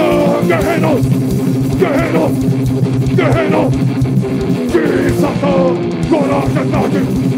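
Heavy rock band playing live at full volume: distorted electric guitar and drums, with a singer's voice over them.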